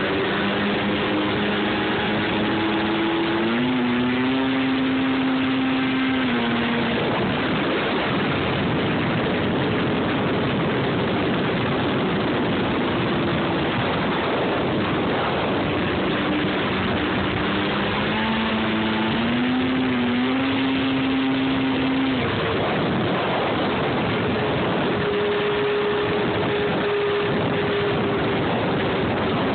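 Snowmobile engine running under way, its pitch climbing in steps a few seconds in and again past the middle, holding, then dropping back each time, over a steady rushing noise.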